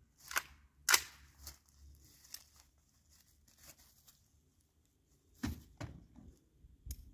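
A rifle firing a 300 Blackout subsonic round at soft body armor: two sharp cracks about half a second apart, the second the louder, followed by a few fainter knocks and low thumps.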